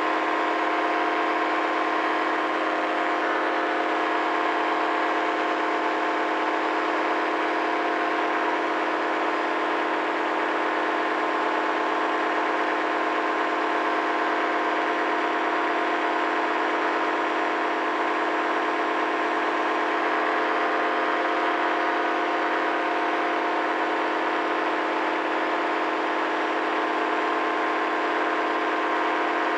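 Paramotor engine and propeller droning at a steady throttle in flight, an even pitch that does not change.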